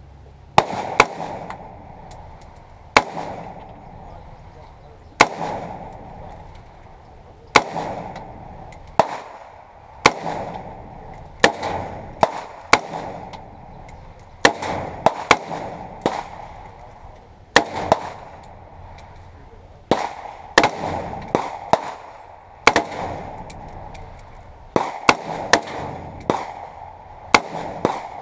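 DPMS AR-15 rifle firing about thirty shots at an irregular pace, sometimes two or three within a second. Each sharp crack is followed by a ringing echo.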